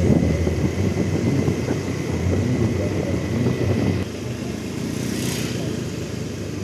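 Motorcycle engine running while riding along a road, easing off about four seconds in. Shortly after, a brief hiss as an oncoming motorcycle passes close by.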